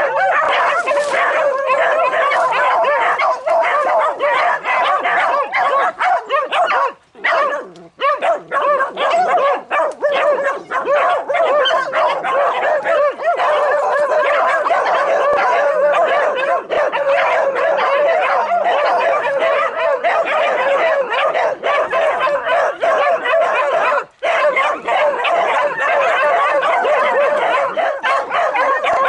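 A pack of beagle bitches baying continuously, many voices overlapping, as they hold a wild boar at bay. The chorus breaks off briefly twice, about a third of the way in and again near the end.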